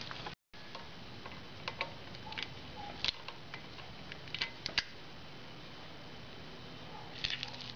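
Scattered light metallic clicks of a ring spanner tightening the drain screw at the bottom of a motorcycle fork slider, over a steady faint hiss.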